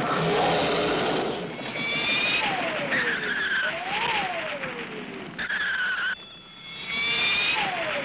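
Cartoon sound effects of a high-speed dash: a rushing whoosh with screeching skid squeals and several falling whistle-like glides.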